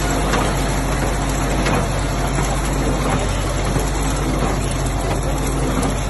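International Harvester McCormick 55W Electrall baler running steadily while baling hay, driven by an electric motor fed from the tractor's Electrall generator, so the tractor engine runs along with it in a constant mechanical drone and hum.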